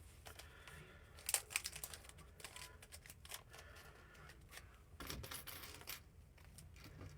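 Faint handling noises of small metal safety pins and a plastic bag: scattered light clicks, a sharper click about a second in, and a short rustle around five seconds in.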